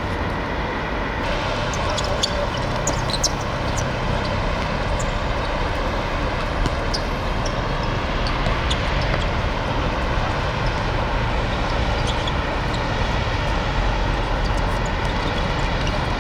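Steady rumbling background noise with a few faint short knocks.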